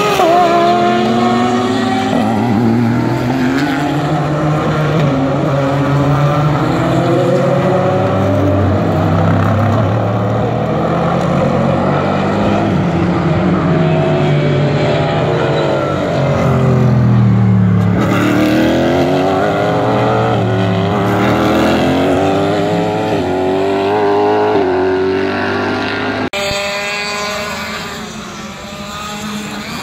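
Several IMSA GT race cars driving through a corner one after another, their engines at high revs with the pitch rising and falling through downshifts and upshifts. The sound changes abruptly a few seconds before the end.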